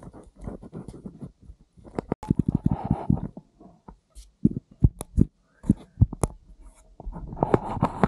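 Irregular crackling, knocking and rustling close to the microphone, with low thumps, as of someone moving through forest undergrowth and handling things.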